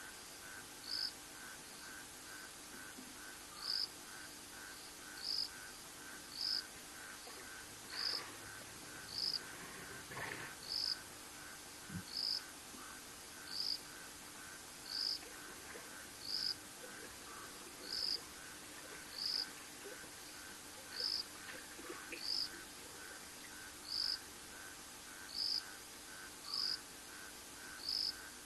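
Night insects chirping: a high, short chirp about every second and a half over a fainter, faster pulsing of about three a second. Around the middle come a couple of faint sloshes of water from the elephant's trunk in the trough.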